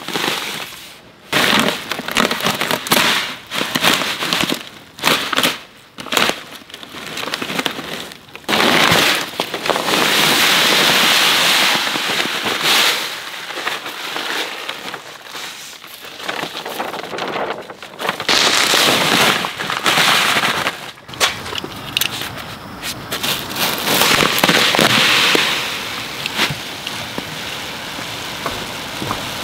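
Dry granules pouring out of bags into a plastic spreader hopper, a long rattling hiss in several separate pours, with bags crinkling and rustling between them.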